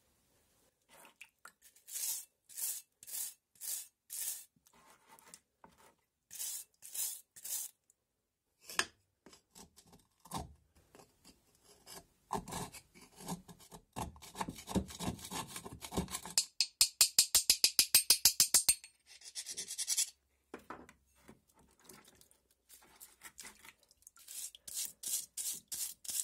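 A screwdriver scrapes and chips hardened dirt off a steel mason's hammer head in bursts of strokes, the loudest a quick even run of about ten strokes a second. Near the end a stiff scrubbing brush scrubs the wet hammer head in quick regular strokes.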